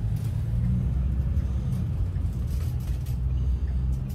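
Low, steady engine and road rumble heard inside a hotel shuttle's cabin as it pulls away from the curb.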